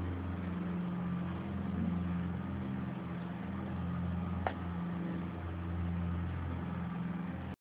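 A steady low engine drone that swells and eases slowly, with a single faint click about four and a half seconds in.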